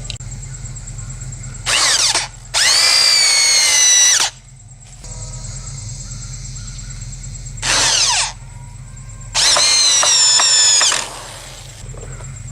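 Power drill driving screws into a wooden board, two screws in turn. Each is a short burst followed by a longer run of about a second and a half, with the motor's whine falling slightly in pitch during the longer runs.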